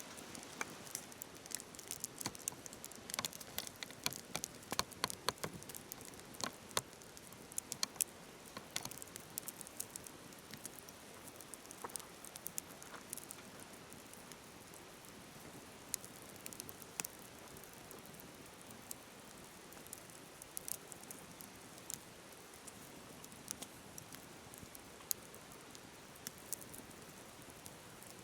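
Wood fire crackling, with many sharp snaps that come thickest in the first several seconds and thin out later, over the steady hiss of a flowing river.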